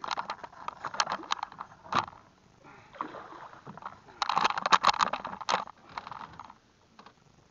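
A hooked bowfin thrashing and splashing at the water's surface, in bursts: a short flurry of splashes in the first two seconds and a louder one from about four to five and a half seconds in.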